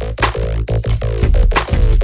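Electronic dance music with a heavy bass line and a fast, driving beat.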